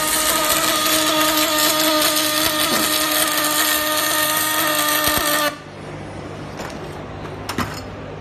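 MIG welding arc from a Sanjoe MIG500 synergic welder, a loud steady crackle with a buzzing hum while the bead is laid, cutting off suddenly about five and a half seconds in when the arc stops. After that a low background hum remains, with a couple of short clicks near the end.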